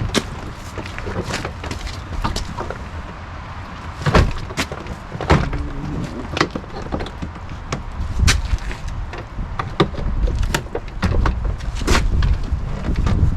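Clicks and knocks from hands working at a pickup truck's door and its handle mechanism, with several louder knocks among them over low rumbling handling noise.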